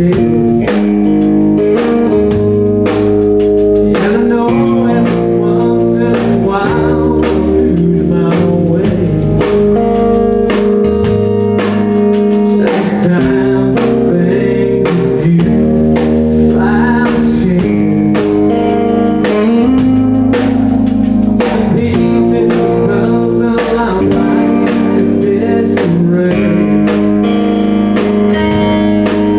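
Live blues-rock band: a man singing over an electric guitar, with a steady drum beat.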